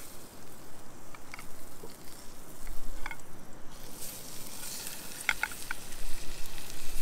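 Trout frying skin-side down in butter in a small skillet over a camp fire, sizzling steadily, with a few short clicks.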